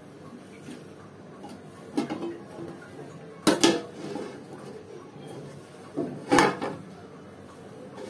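Steel plate-lid clanking against a metal pot on the stove: a few short, sharp knocks, the loudest about three and a half seconds in and again near six and a half seconds.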